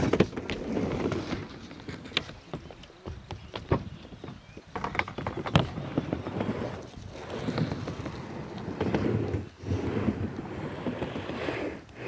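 Wind buffeting the microphone, with dogs panting in short rapid bursts in the later seconds.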